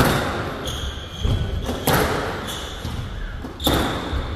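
Squash rally: the ball is hit hard by the rackets and smacks off the court walls about every two seconds, each hit echoing in the hall, with short high-pitched squeaks of court shoes on the floor between shots.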